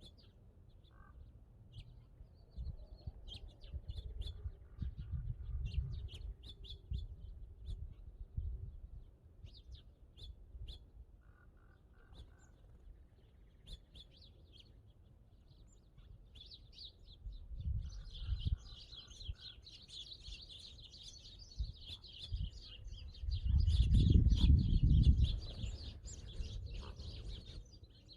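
Small birds chirping, sparse at first and then a dense chorus of high chirps past the middle, with a lower short repeated call now and then. Gusts of wind rumble on the microphone, the loudest one toward the end.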